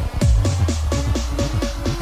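Electronic dance music with a fast steady beat, hi-hat-like hits about four times a second, and a deep bass that slides down in pitch near the start.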